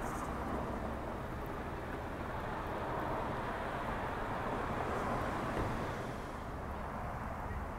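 City street traffic: a steady hum of cars at an intersection, with vehicles passing close by. It swells a little about five seconds in, then eases.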